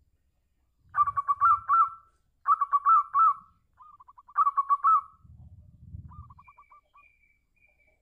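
Zebra dove (perkutut) cooing: three loud, rapid staccato phrases of about a second each, with softer quick trills of the same notes between and after them.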